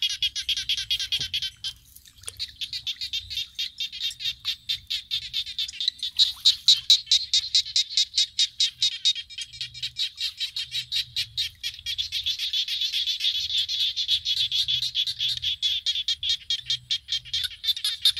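A chorus of frogs calling in rapid, steady pulses, several a second, with many callers overlapping.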